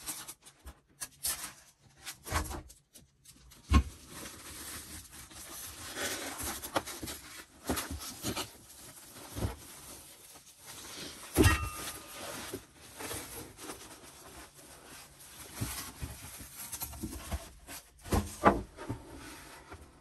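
Styrofoam packing and a plastic bag rustling and rubbing as a flat-screen monitor is unpacked by hand, with scattered knocks and a few louder thumps as the foam and monitor are set down.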